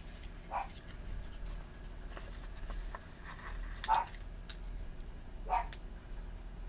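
Desk handling noises from planner work: three short crackly rustles, about half a second in, at four seconds and near the end, with faint light clicks in between, as of stickers and paper being handled.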